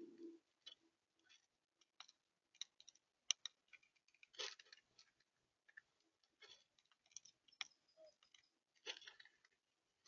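Faint, irregular clicks and taps of birds pecking at seed on a bird feeder.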